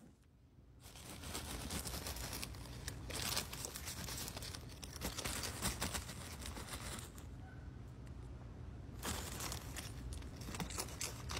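Clear plastic zip-top bag crinkling and cereal rings rattling as a raccoon paws and noses into the bag for food. The crackling starts about a second in and eases off for a moment before picking up again.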